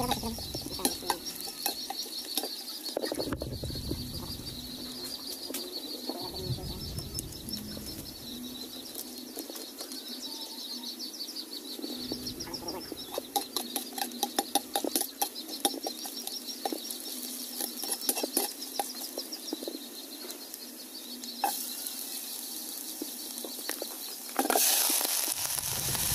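Metal ladle scraping and clinking against a stainless steel pot while chopped garlic fries in oil, then, near the end, a sudden loud sizzle as sliced onions go into the hot oil.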